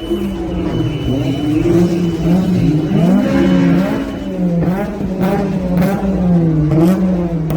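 A modified car's engine idling and being blipped in several short revs, its pitch rising and dropping back each time. A faint high steady whine runs through the first half, and a few short sharp cracks come in the second half.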